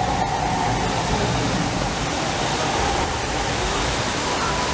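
A steady rushing noise with a faint steady tone above it.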